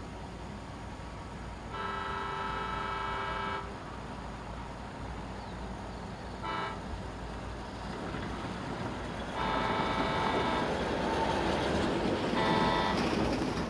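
Diesel locomotive's air horn sounding as the train approaches: a blast of about two seconds starting about two seconds in, a short toot near the middle, then a longer blast and a shorter one near the end. Under it a steady low rumble of the oncoming train that grows louder.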